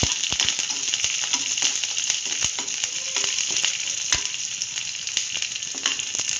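Sliced shallots and curry leaves sizzling steadily in hot oil, in a tempering that already holds mustard seeds and urad dal. Scattered sharp clicks and taps sound throughout.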